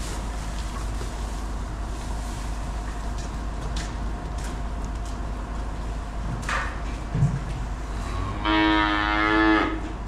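A cow moos once near the end, a single call of about a second, over the steady drone of an engine running. A short knock sounds a little before the call.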